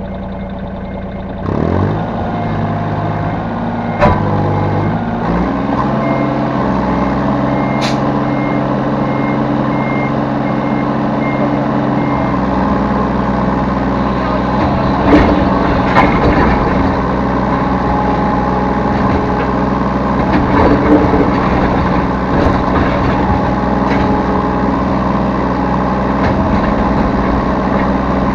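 Yanmar B3 Sigma mini excavator's diesel engine running, stepping up in speed about a second and a half in and changing note again about halfway through. A rapid high beeping alarm sounds for the first several seconds, and a few sharp clanks break through.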